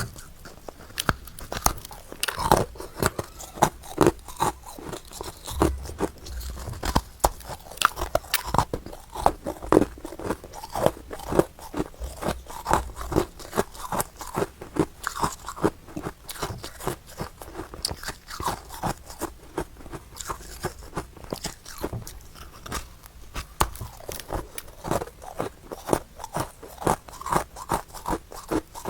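Close-up crunching and chewing of powdery freezer frost, with rapid, irregular crisp crunches several times a second as the icy frost is bitten and chewed.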